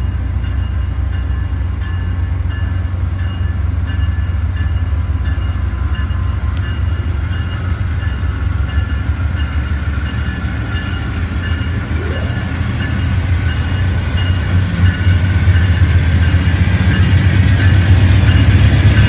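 Passenger train on the move, its diesel locomotives giving a steady low rumble with a faint high whine above it; it grows louder over the last few seconds.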